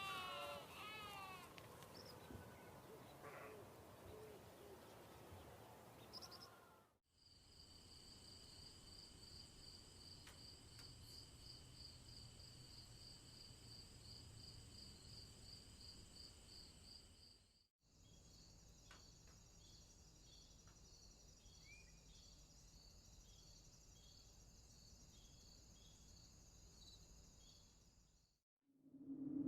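A faint sequence of short sound-effect clips. First come quick falling bird-like chirps for about seven seconds. After a brief silence, a steady high pulsing trill runs about two to three pulses a second for roughly ten seconds. After another short gap, a second, similar high pulsing trill follows.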